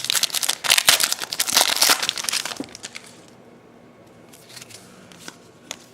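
Trading card pack wrappers being torn and crinkled as hockey card packs are opened, a dense crackle for the first two and a half seconds, then only a few light rustles.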